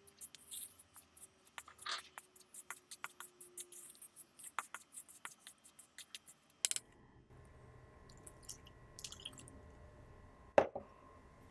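A fork scraping and clicking against the side of a mixing bowl in quick, irregular strokes as flour and oil are stirred together. About seven seconds in the scratching stops and a faint steady hum takes over, with one sharp knock near the end.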